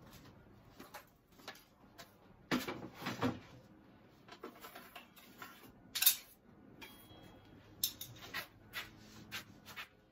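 A plywood disc being handled and set down on a table saw's top: scattered light knocks and scrapes, the loudest knock about six seconds in.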